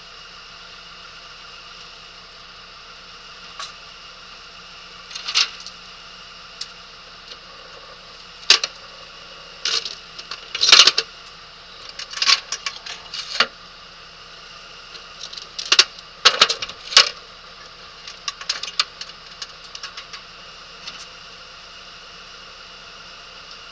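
Close handling noise at the microphone: scattered sharp clicks, taps and small metallic jingles, in two busy clusters around the middle, over a steady hiss.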